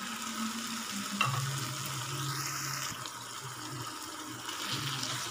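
Chicken masala in a pan sizzling with a steady hiss just after water has been poured in, with a low hum underneath and a single click about a second in.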